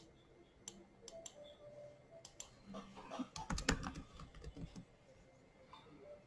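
Faint keystrokes on a computer keyboard: a scatter of light taps as a name is typed into a search box.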